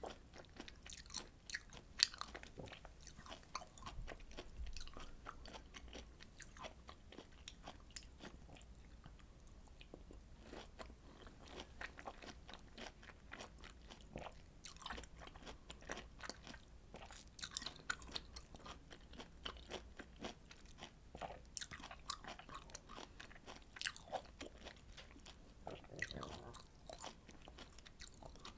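Close-miked chewing of juicy citrus fruit: a steady run of short, wet smacks and bites.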